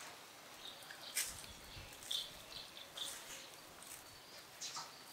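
Quiet outdoor ambience with a few faint, short high chirps and soft clicks scattered through it.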